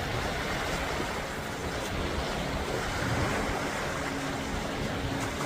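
Steady wash of sea waves and wind at the shoreline, with wind noise on the microphone.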